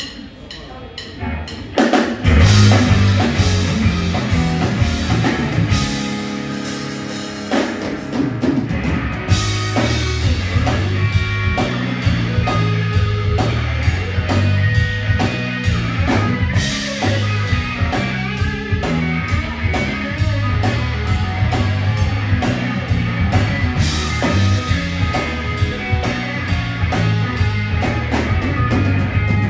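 Live blues-rock trio of electric guitar, electric bass and drum kit playing an instrumental passage. The full band comes in about two seconds in, holds a sustained passage, then settles into a steady drum-driven groove.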